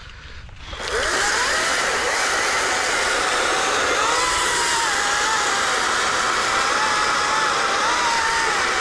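Ryobi RY40509 40-volt cordless electric chainsaw starting up about a second in, its whine rising, then its chain cutting steadily through a fallen log, the whine wavering in pitch as the bar works into the wood.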